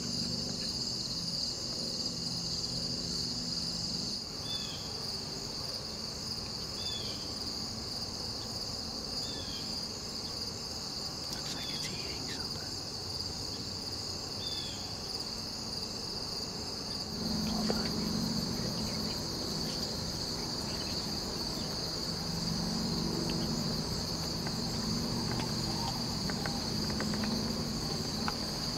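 Steady chorus of crickets and other insects, a continuous high trill of a late-summer evening field. In the first half, a few short falling chirps come about every two seconds.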